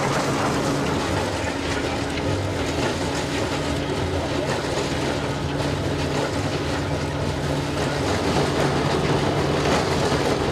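Vintage threshing mill running as sheaves are fed into it, a steady machine drone with an engine hum beneath.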